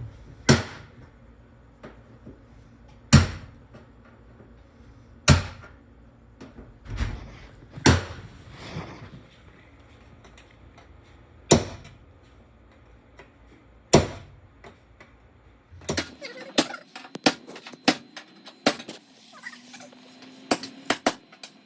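Hammer blows on metal, one sharp ringing strike every two to three seconds, as rivets are knocked out of a school bus body. About sixteen seconds in, a quicker run of lighter taps and clicks takes over.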